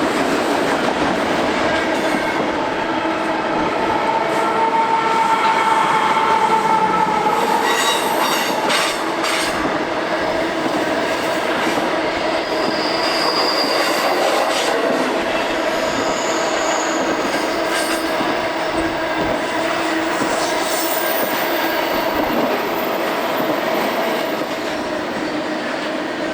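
Freight train rolling past close by: steel wheels running on the rail with a steady rumble and hiss, and a squeal of the wheels that is strongest in the first third. A quick series of clicks from the wheels crossing rail joints comes about eight to nine seconds in.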